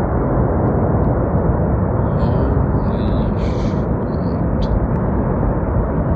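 Wind buffeting a phone microphone: a steady, loud rumbling noise, with a few faint short higher sounds between about two and five seconds in.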